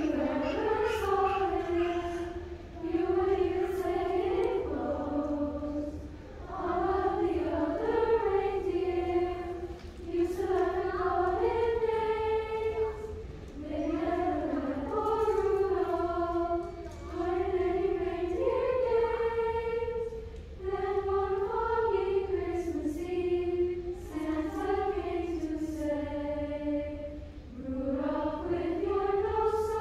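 A girls' middle school choir singing together, in held phrases of a few seconds each with short breaks for breath between them.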